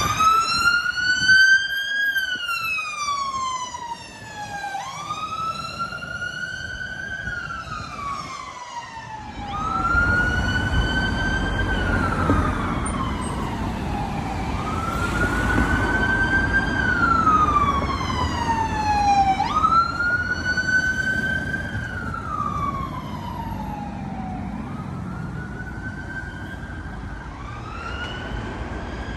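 Emergency vehicle siren on a slow wail, each cycle rising for about two seconds and falling for about three, repeating roughly every five seconds. A low road rumble joins about ten seconds in.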